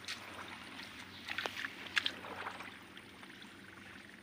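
Sloshing and splashing in shallow muddy water as hands grope through it, with a few sharp splashes about one and a half to two seconds in.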